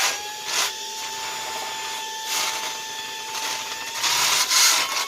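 Saker cordless handheld vacuum's motor running in blower mode: a steady whine with a rush of air that swells now and then. The pitch steps up slightly about four seconds in.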